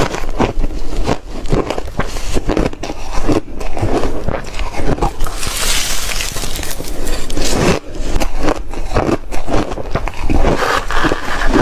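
Soft reshaved refrigerator ice being bitten and chewed: dense, continuous crunching.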